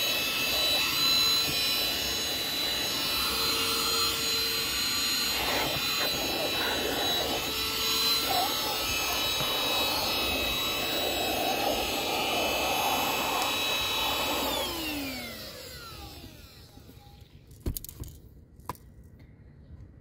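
eufy HomeVac H11 cordless handheld vacuum running steadily with a high motor whine as its nozzle is worked over a car floor mat. Near the end it is switched off and the motor winds down, falling in pitch, and a few light clicks follow.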